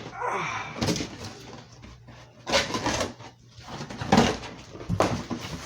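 A large cardboard box and its packing being opened and handled, in several bursts of scraping and rustling.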